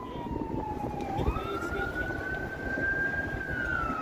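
Emergency vehicle siren wailing: a slow falling tone that jumps up about a second in, climbs slowly, and starts falling again near the end, over steady background noise.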